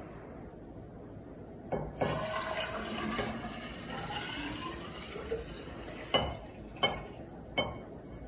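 Water poured from one tall glass cylinder into another, starting with a knock and running for about three and a half seconds, followed by three short clinks about a second apart.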